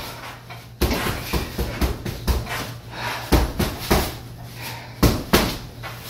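Boxing gloves punching a hanging heavy bag: a string of irregularly spaced hits, the strongest coming in quick pairs and threes like combinations.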